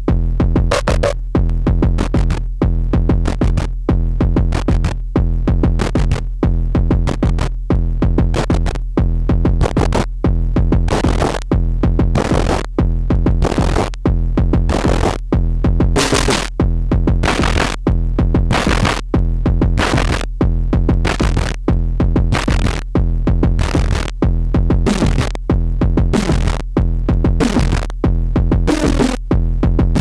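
WMD Kraken eurorack synthesizer module playing a steady rhythmic patch: short, evenly spaced electronic pulses over a sustained low drone, like a drum machine pattern.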